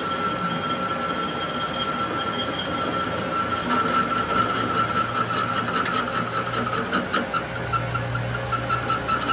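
Workshop machinery running steadily during an axle spindle repair, with a high steady whine, scattered light clicks, and a low hum joining about halfway through.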